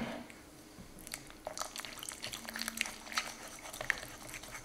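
Wire balloon whisk beating cold mascarpone and white chocolate cream by hand in a ceramic bowl. Quick irregular wet squelches and ticks of the wires against the bowl start about a second in.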